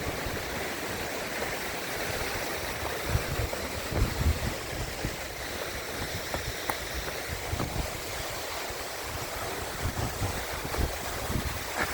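Waterfall rushing steadily, with wind buffeting the microphone in scattered low thumps.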